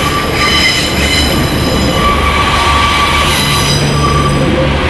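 Two diesel multiple-unit passenger trains passing close by: a steady low rumble of wheels on the rails, with a high-pitched wheel squeal ringing over it.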